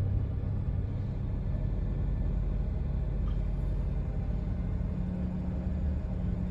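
GM 3800 V6 idling unevenly, the idle hunting as it tries to come down from about 1,000 RPM. The owner blames the ignition side, suspecting a heat-cracked crank/cam sensor and ignition module wiring harness.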